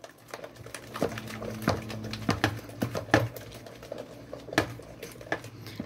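Wooden spoon stirring a thickening paste of oil and caustic soda in a plastic bowl: irregular clicks, knocks and scrapes of the spoon against the bowl over a steady low hum.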